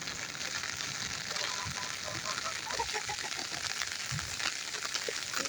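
Steady fine hiss of rainwater after a rain, an even fizzing wash with faint crackling ticks through it.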